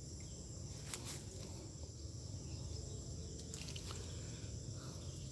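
Quiet outdoor ambience with a steady faint low rumble and a few faint ticks, about a second in and again a little past the middle.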